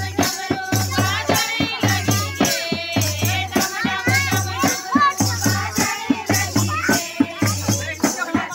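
Women's group singing of a Garhwali devotional kirtan (bhajan), over a steady drum beat about twice a second and a rattling percussion. The seated women clap their hands along.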